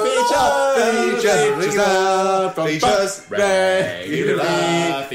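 Men singing a slow chant with long held notes that slide between pitches.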